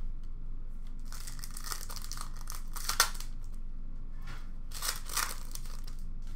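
A foil trading-card pack crinkling and being torn open by hand. There is rustling with a sharp snap about three seconds in, and another short burst of crinkling near the end.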